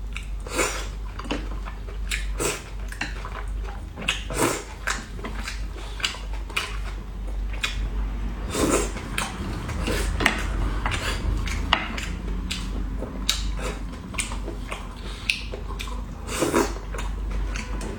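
Eating at close range: irregular clicks and clinks of utensils against dishes, mixed with chewing and mouth noises, over a steady low hum.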